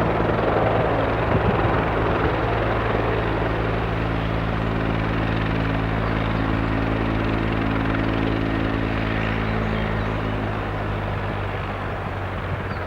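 Heavy transport helicopter's rotors and turbine engines running steadily as it hovers on a lifting mission, slowly growing fainter.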